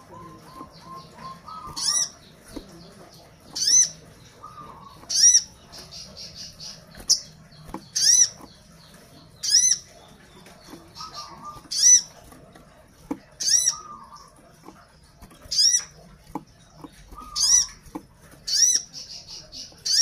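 Orange-bellied leafbird (sogon) giving a loud, arched, high whistled call again and again, about once every one and a half to two seconds, with softer rapid buzzy trills and chatter in between. It is calling to other birds of its kind.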